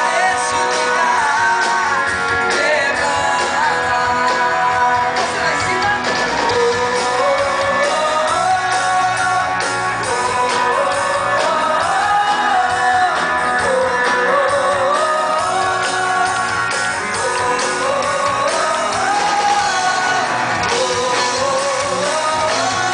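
Live band music with guitars, and a woman singing the lead melody into a microphone over the PA, heard from within the audience.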